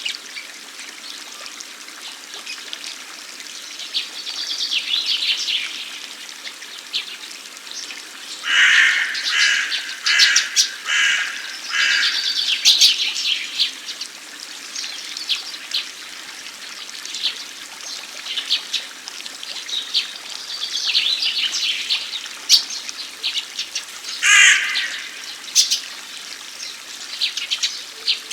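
Water fountain splashing and trickling steadily, with birds calling over it: a run of about five evenly spaced calls about nine seconds in, another call near the end, and scattered higher chirps.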